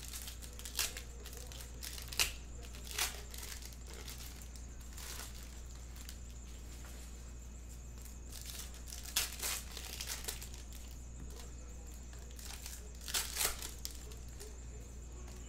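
Plastic wrappers of Topps Stadium Club baseball card packs crinkling and tearing as packs are ripped open, in short bursts a few seconds apart, over a low steady hum.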